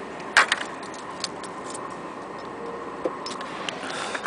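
A few sharp, irregular clicks and light scuffs from walking across asphalt with a handheld camera, the loudest click about half a second in, over a faint steady hum.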